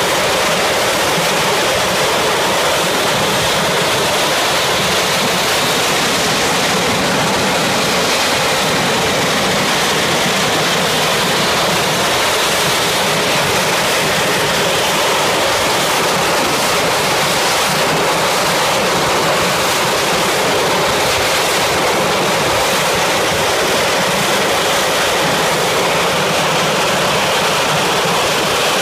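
Rolls-Royce Derwent 8 centrifugal-flow turbojet running steadily at power, giving a loud, even rush of jet noise.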